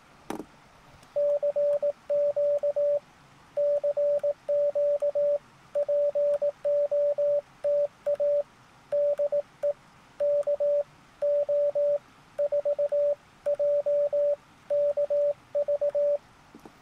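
Morse code sidetone from a Recent RS-978 transceiver: a steady beep keyed on and off with an iambic paddle, sending a Parks on the Air call, "CQ CQ POTA DE KO4JKV". It starts about a second in, after a single click, and stops just before the end.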